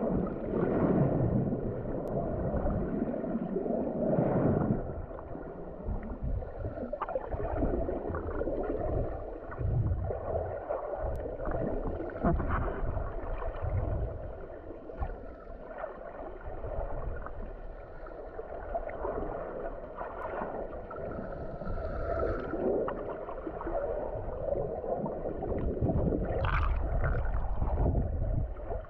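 Muffled underwater water noise picked up by a camera submerged in the sea: irregular sloshing and gurgling surges of swell against rock, rising and falling every few seconds.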